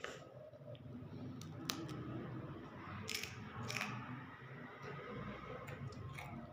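A child biting and chewing a crisp snack, with several sharp, separate crunches.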